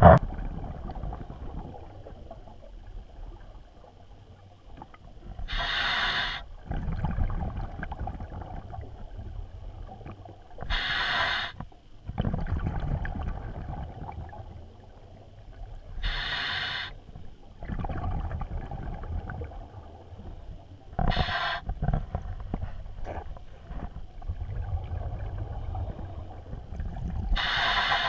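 Scuba diver breathing through a regulator underwater: a short hissing inhale about every five seconds, each followed by a few seconds of low bubbling exhale.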